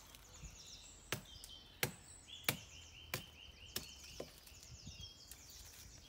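A small hatchet chopping through a green hazel stick: about six sharp chops, roughly one every two-thirds of a second, with birds chirping behind.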